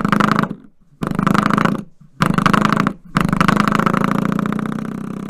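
Coiled-spring door stop flicked four times, each boing a fast wobbling buzz. The first three stop short about a second apart; the fourth, about three seconds in, rings on and slowly fades.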